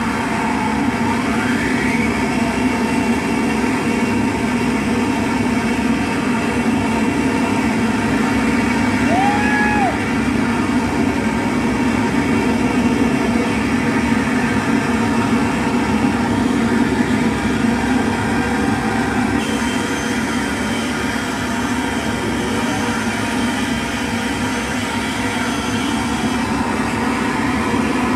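Live electronic noise music played through effects pedals and a mixer: a dense, steady droning noise with a short rising whistle near the start and a brief tone about nine seconds in, its upper texture shifting around twenty seconds in.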